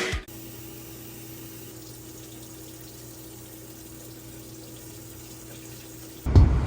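Steady background hiss with a faint low hum, no clicks or knocks in it. Music cuts off right at the start, and loud sound returns near the end.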